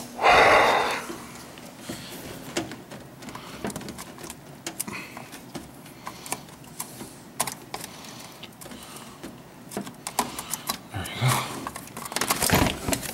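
Scattered clicks, taps and rattles of hands working a snagged wiring loom and parts loose in a truck's engine bay. A louder burst of rustling noise comes about half a second in, and more come near the end.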